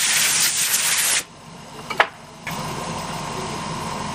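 A loud steady hiss that stops about a second in, a single sharp click, then a small motor starts running steadily with an even hum.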